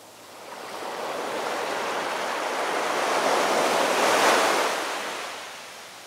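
Sea surf washing up a sandy beach among rocks: one wave swells in, is loudest about four seconds in, and fades away near the end.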